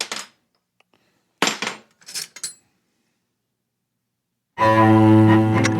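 Two brief clinks of metal drill bits being set down, then silence, then background music with sustained bowed-string notes starting near the end.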